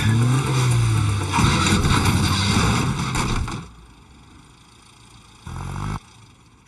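An engine running, its pitch rising and falling, that stops about three and a half seconds in; a short burst of the same engine sound comes again near the end.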